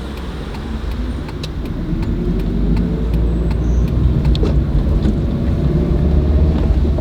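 Wuling Hongguang S minivan driving off and gathering speed: a steady low engine and road rumble, with a tone that climbs slowly in pitch and a level that rises as the van accelerates.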